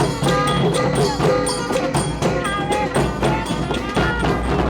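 Lively music with a quick, steady percussion beat and a melody over it.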